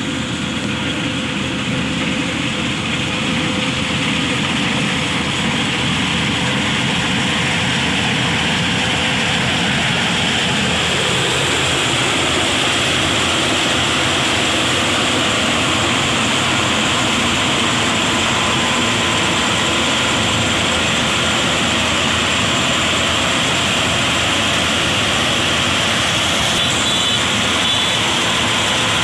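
Rice harvesting machine running steadily under power, a dense mechanical noise with a low tone that drops in pitch once about eleven seconds in.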